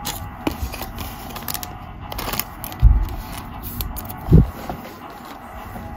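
Trading cards being handled and shuffled by hand: light scrapes and clicks of card stock sliding against card, with two dull thumps about three and four and a half seconds in.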